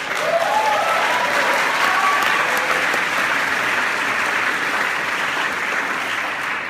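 Audience applauding, breaking out suddenly and tapering off near the end.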